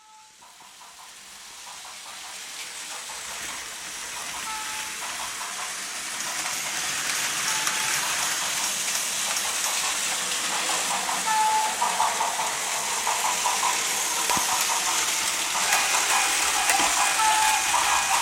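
Plarail toy trains running on plastic track: a steady whirring rattle of small motors, gears and wheels that grows louder over the first several seconds, with a few short electronic beeps scattered through it.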